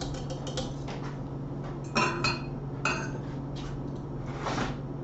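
Metal clatter of a wire whisk against a stainless steel saucepan: a quick run of light taps, then a few short, ringing clinks about two and three seconds in.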